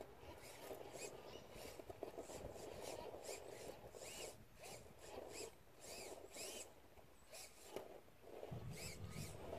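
1/10-scale RC rock crawler's electric motor and gear train whining and rasping in short throttle bursts as it crawls over rock, each burst rising and falling in pitch, several a second.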